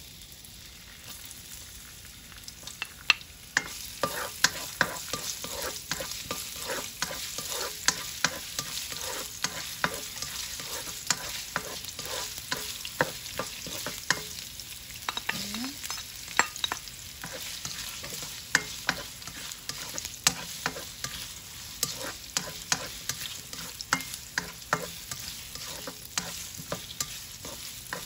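Sliced ginger and onion sizzling in hot olive oil in a nonstick wok, growing louder a few seconds in. A plastic spatula stirs them, clicking and scraping against the pan many times.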